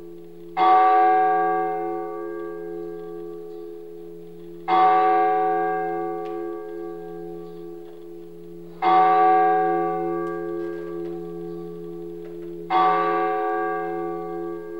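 A bell tolling slowly: four strokes about four seconds apart, each struck sharply and ringing on as it fades.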